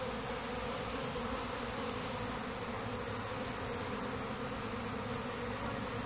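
Honey bee swarm buzzing in one steady, continuous hum, the bees clustered with some still flying around the cluster.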